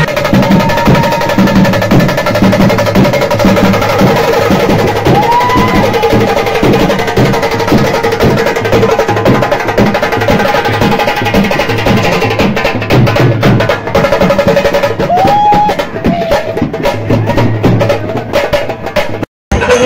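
A procession band playing loud, fast, drum-driven dance music with a steady rapid beat and a few held tones over it; the sound cuts out for a moment near the end.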